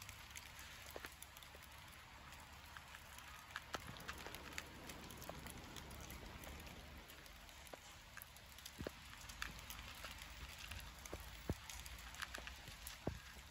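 Light rain pattering, with scattered sharp drips and ticks coming at irregular moments.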